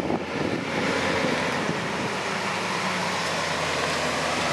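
Chevrolet Silverado pickup truck, its bed piled with scrap metal, driving up and past with its engine running steadily.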